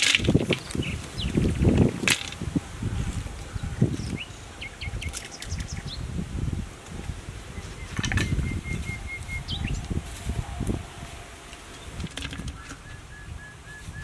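Hands rustling and dropping lemongrass and other herbs and vegetables into a clay pot: irregular rustling and soft knocks, with a sharp click about two seconds in. A short run of evenly repeated high notes sounds twice, near the middle and near the end.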